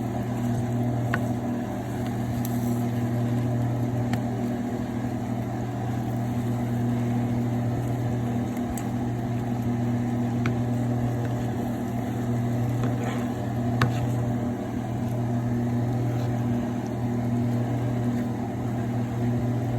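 Steady mechanical hum, like a motor or fan running, with a few faint clicks.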